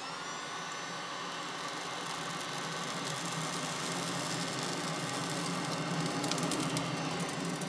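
Electric hot-air charcoal lighter running, its fan whirring steadily as it blows hot air into lump charcoal, which throws off sparks. It switches on at the start, with a few faint crackles from the sparking coals.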